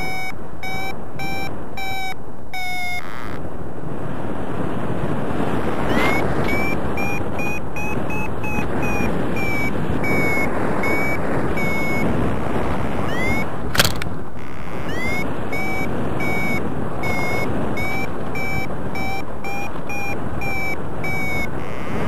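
Flymaster paragliding variometer beeping its climb tone, short beeps about two a second, each opening with a quick upward chirp, the pitch rising and falling a little with the rate of climb: the glider is climbing in lift. The beeps pause for a few seconds early on and resume, under a steady rush of wind on the microphone, with one sharp click about fourteen seconds in.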